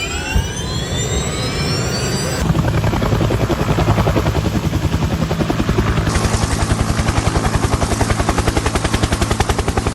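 Helicopter sound: a whine rising in pitch for the first two and a half seconds, as in a turbine spinning up, then a fast, steady rotor chop of about a dozen beats a second.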